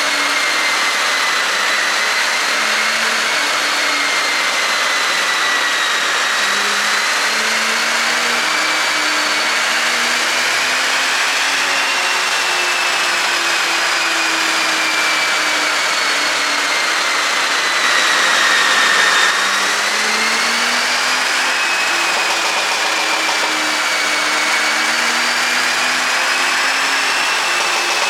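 Porsche Cayenne's turbocharged 3.0-litre V6 running steadily, a loud hiss with a high whine that drifts slowly up and down in pitch, swelling slightly about two-thirds of the way through. No exhaust pops or crackles are heard.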